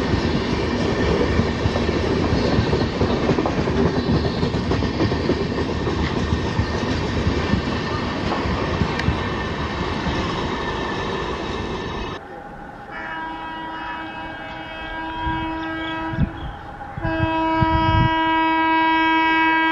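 An express train of LHB coaches passing close by at speed, a steady rumble and clatter of wheels on rail, which cuts off abruptly about two-thirds of the way in. Then an approaching Indian Railways electric locomotive sounds its horn in two long blasts, the second one louder.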